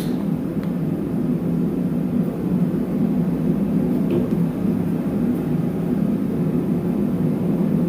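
Torpedo heater running with a steady, low-pitched rush of fan and burner.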